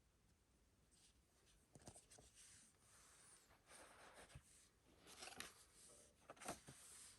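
Faint rustling and scratching with a few light clicks and taps: a Blu-ray steelbook case and its packaging being handled.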